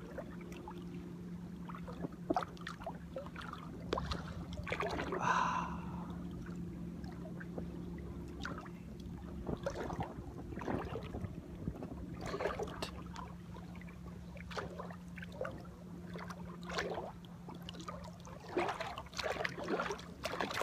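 Small waves splashing and slapping irregularly against an inflatable rubber dinghy, with a steady low hum underneath. A brief higher-pitched sound about five seconds in.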